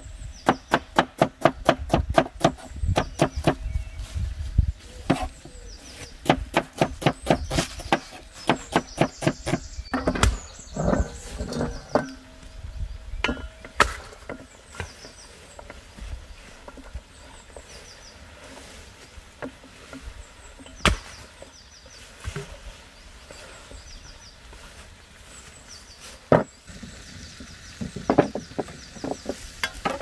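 A knife chopping on a wooden cutting board: quick runs of sharp strikes, about four a second, for the first ten seconds or so, then only a few scattered knocks and a short run near the end.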